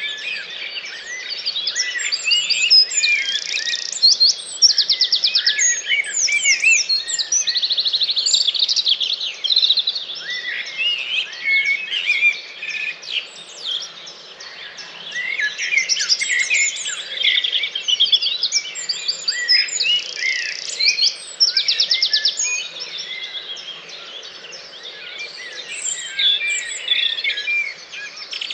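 Dawn chorus: many songbirds singing at once in dense, overlapping chirps and whistles. A loud, rapid trill stands out three times, near the start, about a third of the way in and again about two-thirds through.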